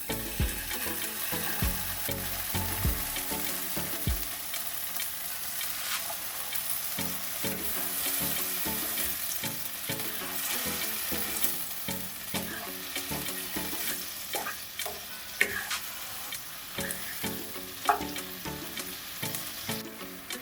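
Food sizzling in hot oil in a pan during a stir fry, a steady hiss with a few sharp taps of the utensil against the pan.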